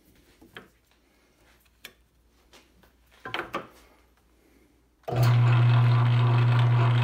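A few light clicks and knocks as the headstock levers are handled, then about five seconds in the South Bend 9A lathe's electric motor is switched on and runs with a steady low hum, turning the belt-driven spindle in back gear.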